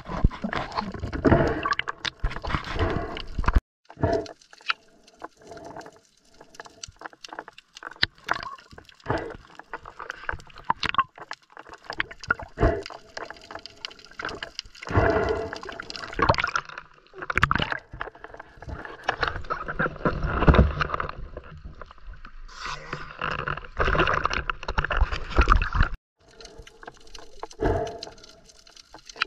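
Water gurgling and sloshing around a camera held underwater, with many scattered clicks and knocks and a couple of brief drops to silence.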